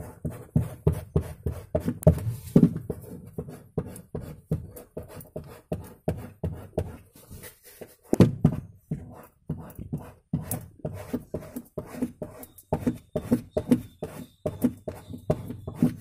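Scissors handle tapping over and over on a freshly glued carpet patch against a refrigerator box's plastic liner, pressing the patch down onto the glue. The taps come quick and uneven, several a second, with one harder knock about eight seconds in.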